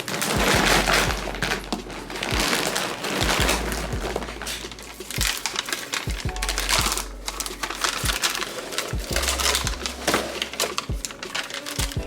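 Background music with a beat and deep bass hits.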